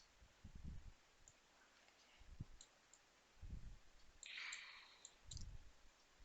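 Faint computer mouse clicks over near-silent room tone: a few scattered light clicks with soft low thumps, and a brief soft hiss about four seconds in.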